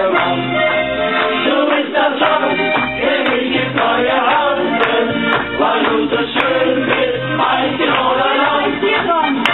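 Live volkstümliche (Alpine folk) music: accordion and guitar over a steady beat, with a woman and a man singing together into microphones.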